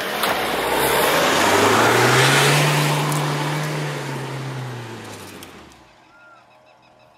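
Mahindra XUV500 AWD's diesel engine revving hard as the SUV passes close and climbs a sandy dirt track, its tyres spraying sand and dust. The engine note rises and swells about two seconds in, then fades away as the vehicle pulls up the slope; faint bird chirps near the end.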